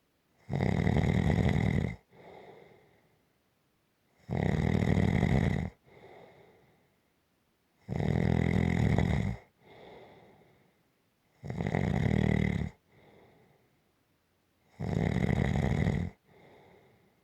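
A sleeper snoring in a steady rhythm: five loud snores about three and a half seconds apart, each lasting about a second and a half and followed by a softer breath.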